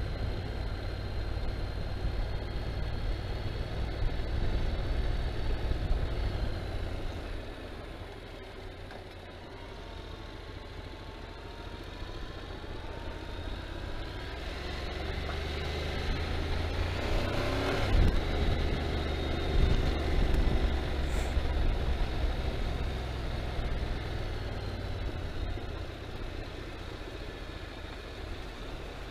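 Motorcycle engine running on the move, with wind and road noise. About seven seconds in the engine eases off and its note falls, then it picks up and builds again from around fourteen seconds. There is a brief knock near eighteen seconds.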